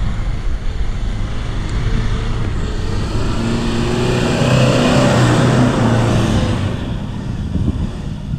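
Toyota Hilux 4x4 revving hard as it drives up a hill, the engine growing louder to a peak about halfway through and then fading away.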